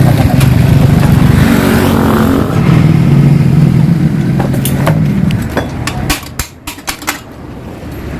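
Yamaha RX-King's two-stroke single-cylinder engine running through its reworked, opened-up exhaust. It is loud and revving with the pitch rising and falling for about five seconds, then drops back toward idle with a few sharp cracks.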